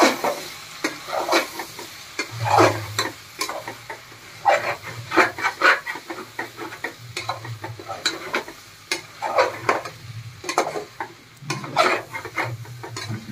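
Metal spoon stirring and scraping vegetables around the inside of an aluminium pressure cooker in irregular strokes, with a sizzle of the vegetables and spice powders frying.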